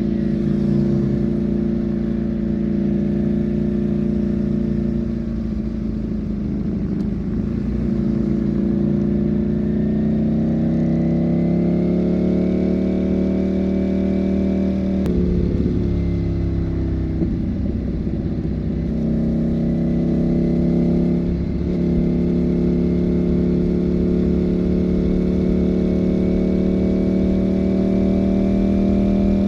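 Ducati Panigale V4 motorcycle's V4 engine running under way. Its pitch rises for several seconds about a third of the way in, breaks off and sinks around halfway, then climbs steadily again through the last third.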